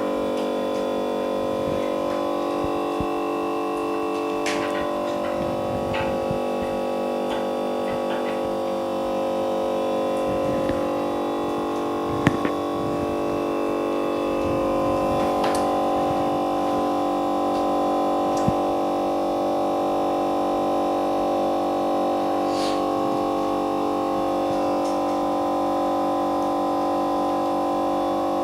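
A steady droning hum of several tones, with a few light clicks and taps scattered through it.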